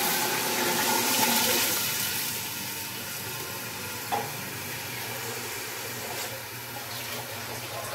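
About 1.5 litres of water poured into an aluminium pressure cooker of browned beef in hot oil: a rushing splash for the first two seconds or so, then a quieter steady hiss, with a single knock about four seconds in.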